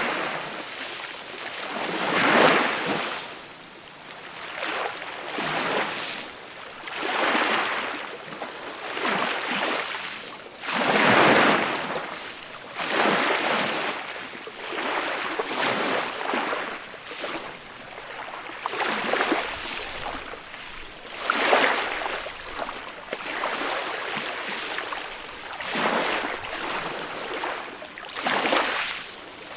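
Small, gentle sea waves breaking and washing up onto a beach, each swelling into a hiss and fading every two to three seconds, with a few larger ones standing out.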